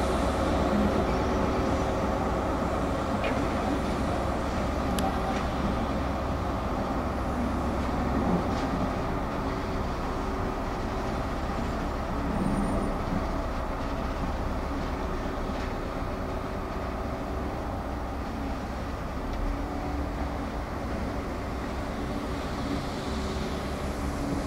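Diesel locomotive engines running steadily, a low drone with a steady hum, from the RailAdventure ex-HST power car of a train moving slowly away. A few faint clicks are heard over it.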